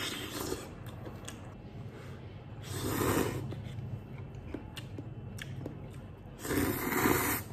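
A person slurping instant noodles: two loud slurps, one a little under halfway through and one near the end, with small wet mouth clicks between.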